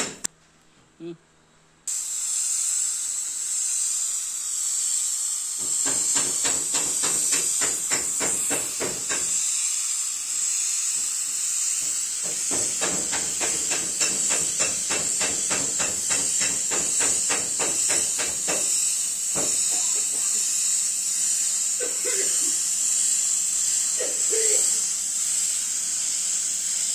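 Gravity-feed paint spray gun hissing steadily as compressed air sprays metallic paint, starting about two seconds in. For stretches in the middle, a fast regular ticking runs under the hiss.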